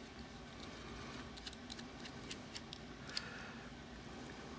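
Faint, scattered small metallic clicks and taps, with a short scrape a little after three seconds, as a Ruko Garant 10 sidebar padlock and picking tools are handled.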